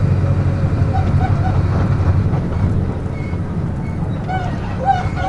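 Front-mounted diesel engine of a Mercedes-Benz OF-1722M bus running steadily, a deep rumble heard from on board. A few short high chirps come through about a second in and again near the end.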